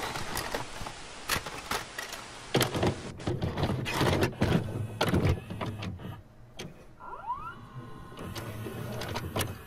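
VHS video deck's tape mechanism: clicks and clunks with a motor whir, and a brief rising whine about seven seconds in.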